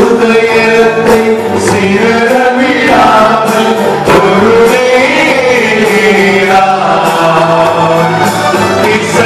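Men singing an old Tamil Christian hymn (keerthanai) through microphones, with instrumental accompaniment and light percussion keeping time.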